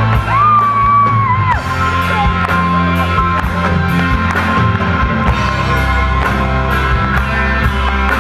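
Live rock band playing. A long held high note rises in just after the start and falls away after about a second and a half, over a steady bass and a regular beat of cymbal strokes.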